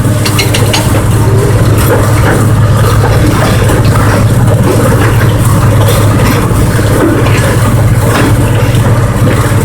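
Excursion train's locomotive engine running steadily with a strong low drone, mixed with scattered clicks and knocks from the cars on the track.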